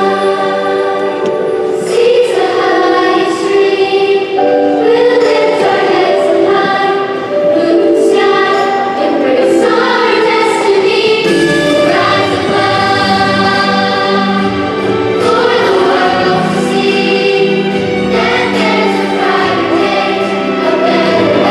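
Large children's and youth choir singing a song in many voices, with sustained notes over an instrumental accompaniment.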